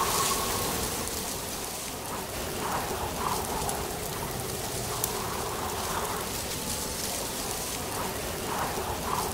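Steady rain falling, an even patter with a few faint drips standing out.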